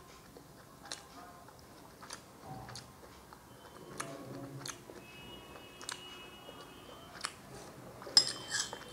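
Close-up chewing of a soft, syrup-soaked rosogolla, with faint wet mouth clicks every second or so. Near the end comes a louder cluster of clicks as the metal spoon works in the small bowl of syrup.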